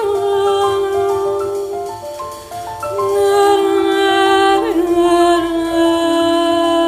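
Live jazz quintet playing long held notes layered at several pitches, with one low melody note bending and wavering in pitch about two-thirds of the way through.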